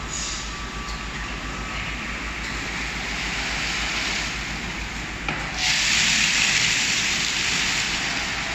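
Risense tunnel car wash machine running, a steady rushing noise that turns louder and hissier about five and a half seconds in.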